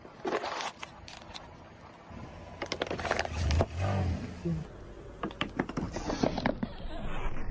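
A car tyre rolling slowly over crunchy objects and crushing them: many sharp crackles and snaps, with the car's low rumble underneath about halfway through.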